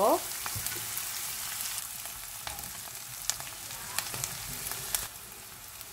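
Chopped onions sizzling in hot ghee in a stainless steel pot, a steady frying hiss, with occasional clicks of a metal spoon against the pot as they are stirred.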